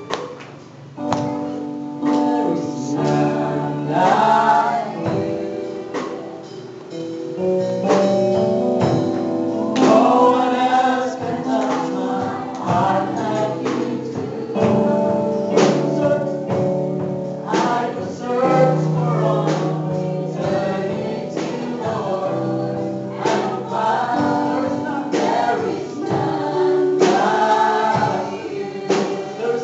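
A congregation singing a gospel worship song, with held keyboard chords and regular drum hits accompanying.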